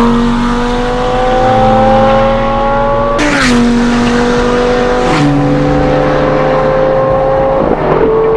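Lamborghini Gallardo Spyder's V10 engine accelerating hard, its pitch climbing steadily through the gears with upshifts about three and five seconds in and another near the end. A brief sharp crack sounds at the first upshift.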